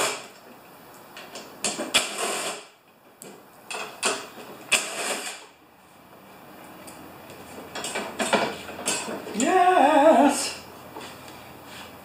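Intermittent knocks, scrapes and rustles of a snow thrower's plastic housing and frame being tipped and handled on a wooden dolly. About ten seconds in, a person's voice sounds briefly, wavering in pitch.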